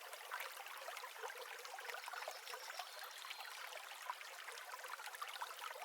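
Faint trickling water, a steady hiss with many small ticks and drips.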